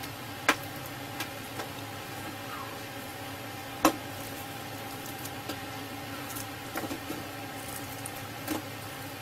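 Hands crumbling and dropping lumps of dry cigarette tar on a tabletop: scattered small taps and clicks, two sharper ones about half a second in and just before four seconds, over a steady background hum.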